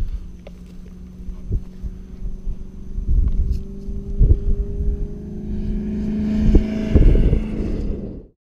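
Competition safari off-road vehicle engine running at a steady pitch that climbs a little and grows louder toward the end, with wind buffeting the microphone. The sound cuts off suddenly just before the end.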